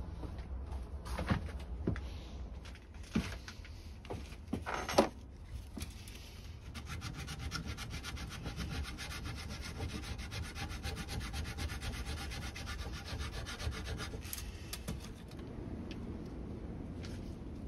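Scrunched aluminium foil, wet with Coca-Cola, scrubbed rapidly back and forth on a rusty chrome-plated BMX wheel rim, a fast even rasping rhythm that is lifting the rust. Before the scrubbing starts there are a few sharp knocks as the wheel is handled.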